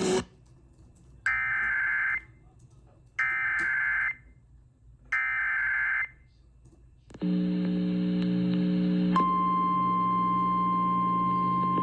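Emergency Alert System data tones: three short buzzing bursts of SAME header code, each about a second long and two seconds apart. Then a steady alert tone starts about seven seconds in, and about two seconds later a loud steady tone near 1 kHz joins it and holds.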